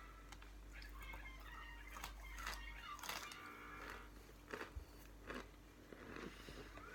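Crunching bites into cornstarch chunks: several sharp crunches a second or so apart, with some faint pitched mouth or voice sounds between them.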